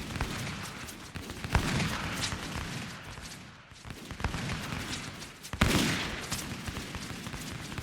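Western battle sound effect: a scattered volley of gunshots, many rapid and overlapping, with two louder, closer shots about a second and a half and five and a half seconds in, each echoing after, and a brief lull between them.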